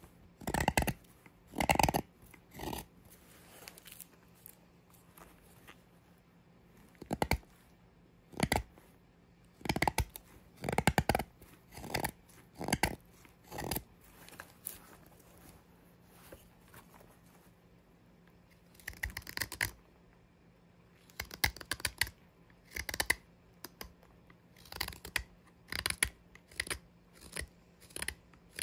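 Mora 106 carving knife slicing shavings from a green oak spoon blank: short, sharp cutting strokes, one or two a second, in irregular runs with pauses of a few seconds between them.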